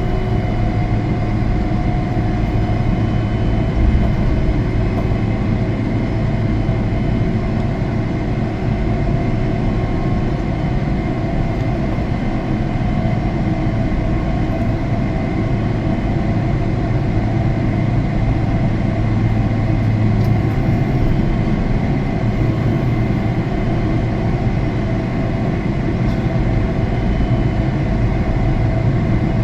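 Jet airliner engine and airflow noise heard inside the cabin: a steady drone with a strong low hum and a few faint steady tones above it.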